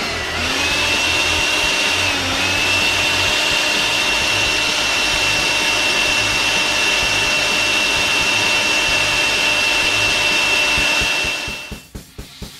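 Leaf blower running steadily with a high whine over a rush of air. Its pitch dips briefly about two seconds in, and it cuts off near the end.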